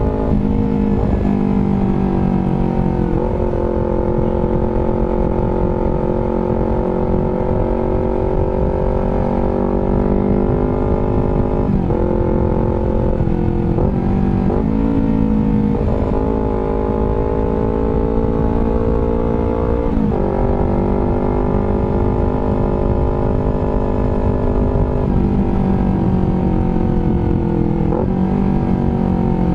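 Honda CBR250RR engine running through an R9 GP series aftermarket exhaust at varying revs. The pitch drops sharply several times and climbs back each time.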